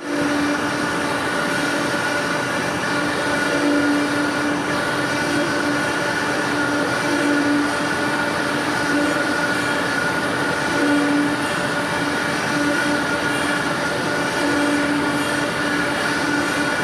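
Okamoto PSG-84DXNC NC surface grinder running: a steady machine noise with a constant higher whine and a low hum that comes and goes every second or two.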